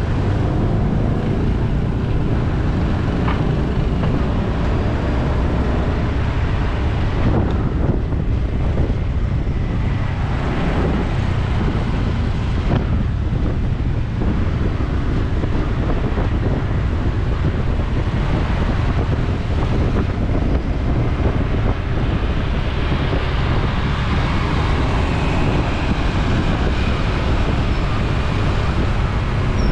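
Steady wind rumble on the microphone mixed with road traffic, heard from a moving bike.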